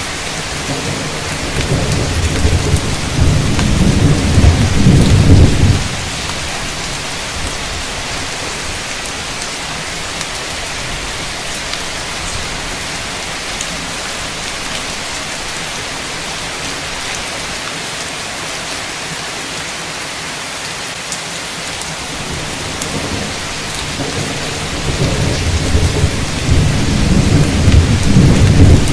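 Heavy rain falling steadily, with two long rolls of thunder. The first builds over the first few seconds and cuts off suddenly; the second builds near the end.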